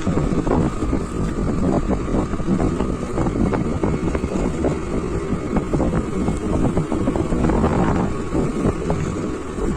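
Wind buffeting the microphone over the steady running noise of a motorised two-wheeler being ridden, with many small scattered knocks throughout.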